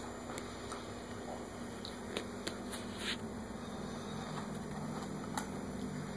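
Light plastic clicks and taps from a small hand rummaging in a plastic food tub of cookies, several in the first three seconds and one more near the end, over a steady low room hum.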